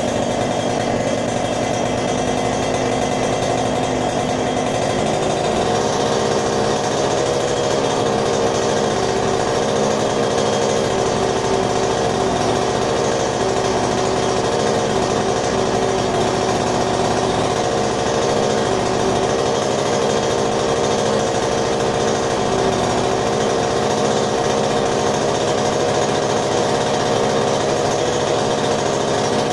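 Yamaha TZM 150's single-cylinder two-stroke engine running steadily at idle, its pitch wavering slightly, on its first start after ten years standing unused.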